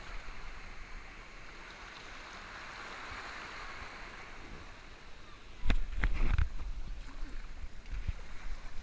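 Water rushing along a water slide under a sliding rider, a steady hiss, broken by two louder thumps about six seconds in.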